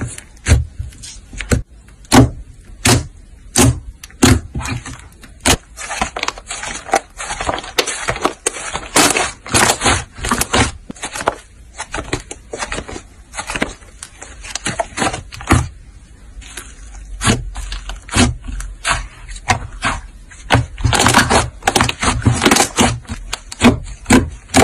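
Slime being worked, giving an irregular run of sharp clicking, crackling pops, several a second.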